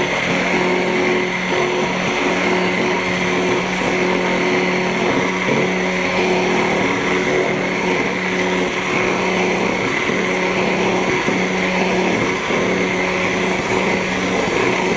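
Immersion blender running steadily at its lowest speed in a glass jar, emulsifying oil into egg white for mayonnaise as the blade head is lifted slowly to draw in the oil on top. The motor gives a steady hum with a high whine over it.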